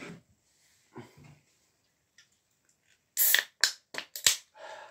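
Aluminium drink cans being handled and set down on a hard floor: a couple of faint knocks, then four or five sharp clicks in quick succession about three seconds in.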